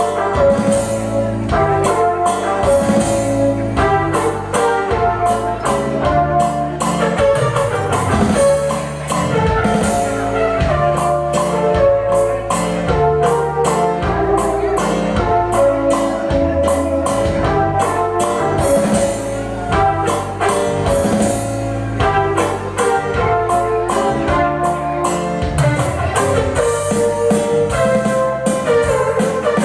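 Music with a steady beat: a held melody over percussion and a pulsing bass line.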